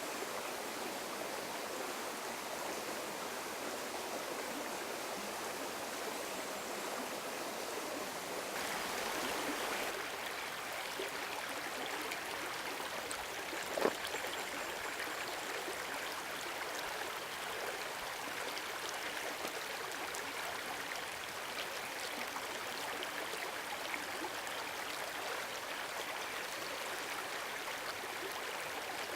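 A river flowing: a steady rush of water, a little brighter in tone from about eight seconds in. A single sharp click stands out about fourteen seconds in.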